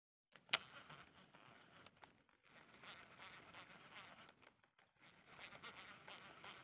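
A sharp click about half a second in, then a baitcasting reel being cranked to retrieve a spinnerbait: a faint fine whirring in three spells with short pauses between them.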